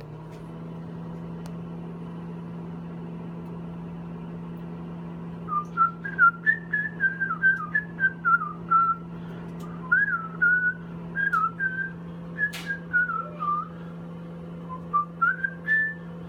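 Microwave oven running with a steady hum. From about five seconds in, a man whistles a wandering, elevator-music-style tune over it, louder than the hum, with one brief click near the end.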